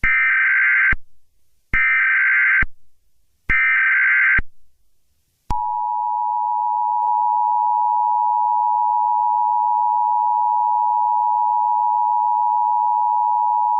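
Emergency Alert System tones: three short bursts of the SAME data header, each about a second long, then the steady two-tone attention signal from about five and a half seconds in to the end. Together they announce an incoming emergency alert message.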